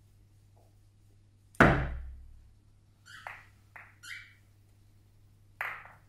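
Carom billiards piqué shot: the steeply raised cue stabs down into the cue ball with one loud, sharp thump about one and a half seconds in, followed by a few lighter clicks of the balls. A pet cockatiel gives a short chirp about four seconds in.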